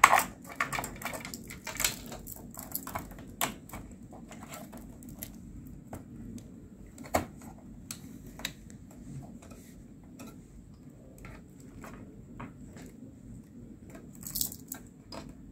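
Scattered small clicks and taps of power-cable connectors and plastic cable parts being handled and plugged in inside an open server chassis, busiest in the first few seconds, over a low steady background hum.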